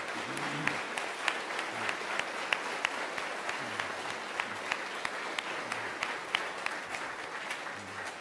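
Audience applauding: dense, steady clapping that starts just before and eases off slightly near the end.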